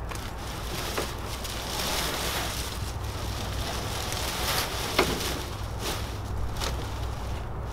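Dry grass matting of a duck-boat blind rustling and crackling as it is handled, with a few sharp clicks, the loudest about five seconds in. A low steady hum runs underneath.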